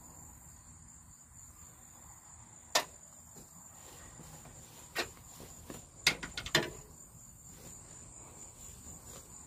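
Insects trilling steadily at a high pitch, broken by a few sharp knocks: one about three seconds in, one about five seconds in, and a quick cluster around six seconds.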